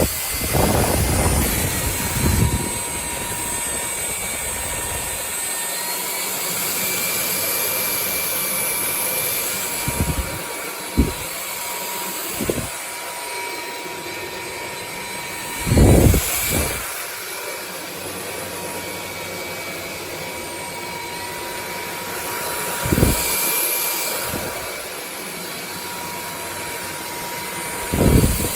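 Dreame Z20 cordless stick vacuum running steadily with a high whine, broken by a few short low knocks, the loudest about halfway through.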